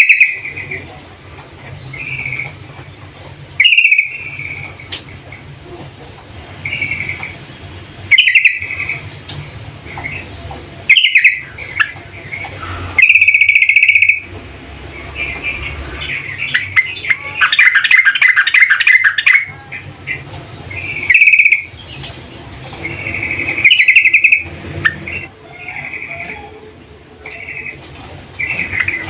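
Yellow-vented bulbul (trucukan) calling: short bubbly phrases repeated every two to three seconds, with a longer chattering run about two-thirds of the way through. The calls are presented as a female's calling to draw a male.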